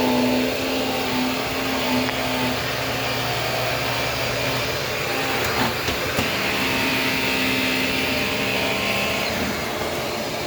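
Shark vacuum cleaner running on a rug with a steady motor whine, with two short clicks about halfway through.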